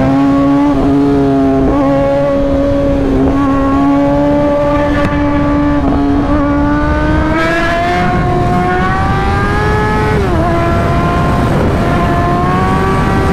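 Sport motorcycle engine running at high, steady cruising revs under wind rush. Its pitch climbs from about 8 seconds in, drops briefly just after 10 seconds, then climbs again.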